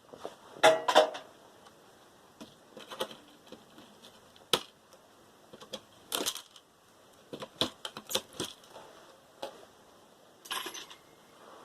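Irregular clicks, knocks and light metallic clatter of small computer parts and tools being handled while a motherboard is taken apart, with the loudest rattle about a second in.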